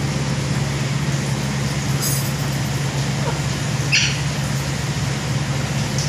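Evaporative air cooler's fan running with a steady hum and rush of air. About four seconds in there is a brief high squeak.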